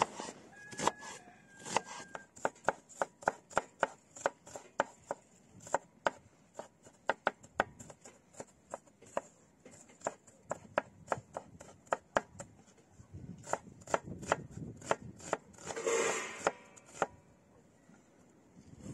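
Knife chopping food in quick, steady strokes, about three a second. About two-thirds of the way in, the chopping gives way to several seconds of scraping and rustling.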